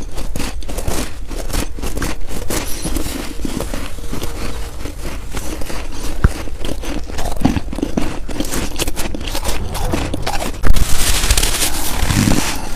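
Close crunching of soft fresh snow being chewed, a dense run of crackly crunches. Near the end comes a louder burst of rustling hiss as snow is pressed against the face and rubs over the clip-on microphone.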